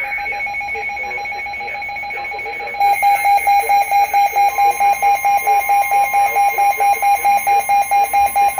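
Sage EAS Endec alert tone for a severe thunderstorm warning. It sounds as a steady beep for about three seconds, then rapid pulsing beeps at about four a second. A fainter steady tone joins about halfway through.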